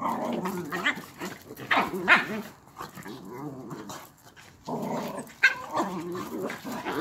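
Dogs growling as they play-fight, in two stretches with a short lull between, broken by a couple of short sharp barks.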